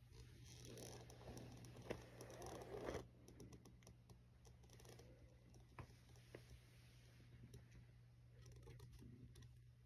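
Near silence with faint rustling and scratching as a cat rolls and squirms on a rug, loudest in the first three seconds, with a few soft clicks later. A low steady hum runs underneath.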